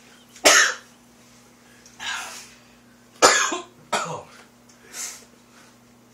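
A man coughing hard about five times after gulping Tapatio hot sauce, the hot sauce catching in his throat; the loudest cough comes a little past the middle.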